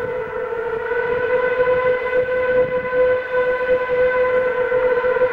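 Steam locomotive whistle, a hooter, blowing one long steady blast on a single unwavering pitch.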